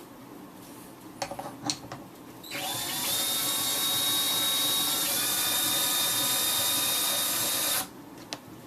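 Electric drill driving a Lyman Universal case trimmer through a homemade socket adapter, running steadily for about five seconds after a brief spin-up and stopping abruptly. A few short clicks come just before it starts.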